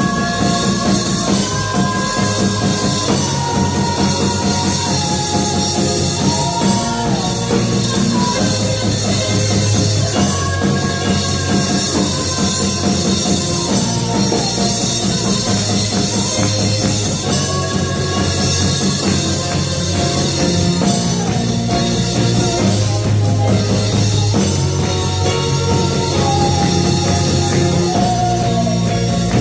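Live worship band playing a slow rock-style song: women's voices singing the melody over electric bass, keyboard and a drum kit.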